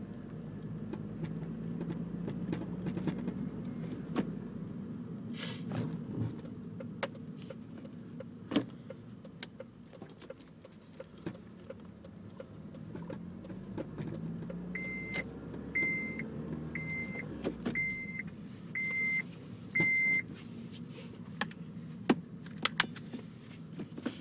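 2006 Honda Civic's 1.8-litre four-cylinder engine idling through an aftermarket Megan Racing cat-back exhaust, with irregular sharp clicks and light rattles over it. Near two-thirds of the way in, a car chime beeps six times about a second apart.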